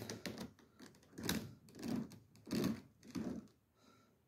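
Home-made cable-driven kayak steering being worked side to side by hand: the pulley on its roll-pinned bolt and the steering cables rattle and click in a run of short clattering bursts as they swing the trolling motor.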